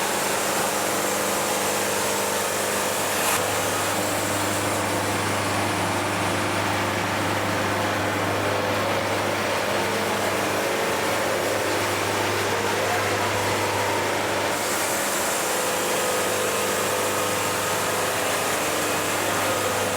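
Wood-Mizer portable band sawmill running steadily with its band blade cutting through a log. The band runs quietly because the lube keeps it clean and free of pitch build-up, which is the sound of a healthy cut.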